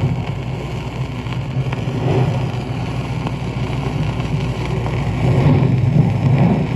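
Recorded ocean surf from an old sound-effects disc: waves breaking and washing in, swelling and easing about every three seconds, under record surface noise.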